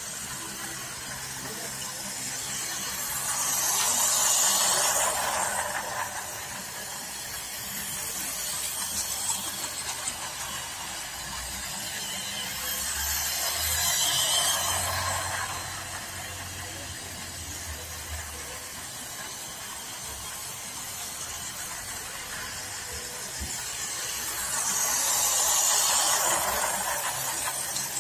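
Toy trains running on plastic track: a steady rattling run that swells three times as a train passes close by, a few seconds in, midway and near the end.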